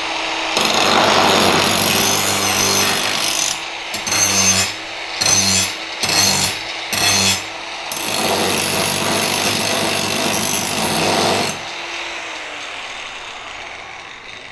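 A DeWalt DWE4119 variable-speed angle grinder cuts a stainless steel rod with an abrasive cut-off disc. It makes a long cut, then four short touches about a second apart, then another long cut. Near the end the disc leaves the metal and the motor runs on free, its sound fading.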